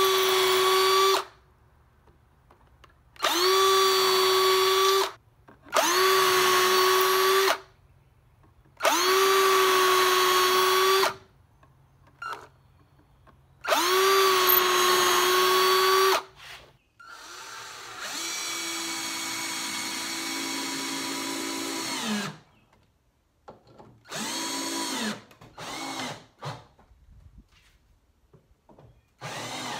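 Cordless drill boring into pine 2x4s, in short runs of about two seconds, each spinning up quickly to a steady whine. About halfway through comes one longer, quieter run, and near the end a few short bursts.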